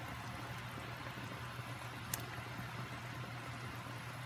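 Sinigang soup simmering in an enamelled cast-iron pot: a steady soft bubbling hiss over a low hum, with a single light click about two seconds in.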